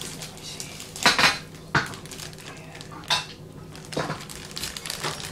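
A plastic packet of Fruit Gums being handled and torn at, giving four or five brief sharp crackles and clatters, the loudest about a second in.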